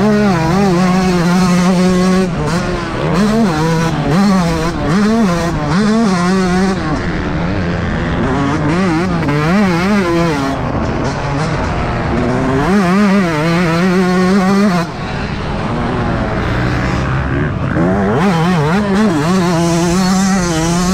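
Yamaha YZ125's single-cylinder two-stroke engine revving hard under riding, its pitch climbing and falling again and again with throttle and gear changes and held high for a few seconds at a time. About 15 seconds in, the throttle briefly shuts off before it winds up again.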